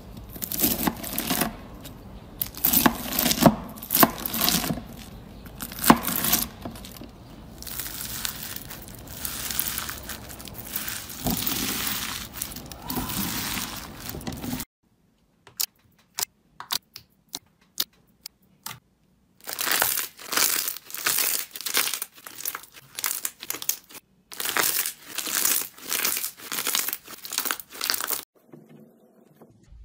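Foam-bead slime (floam) crackling and crinkling as it is sliced and pulled apart by hand. About halfway in, the dense crackle gives way to scattered clicks, then returns in a run of short bouts before dying down near the end.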